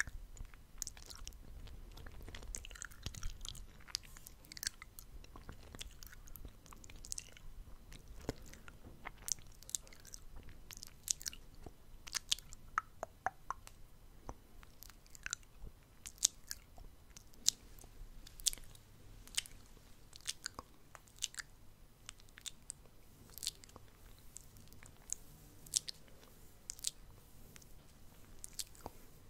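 Close-miked ASMR mouth sounds: wet tongue and lip clicks and smacks, sharp and irregular, several a second.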